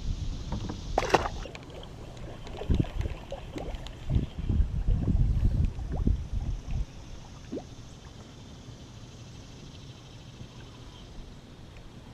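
Knocks and bumps on a kayak as gear is handled aboard: a short burst of noise about a second in, then a run of low thuds for a few seconds. After that only a faint steady background remains.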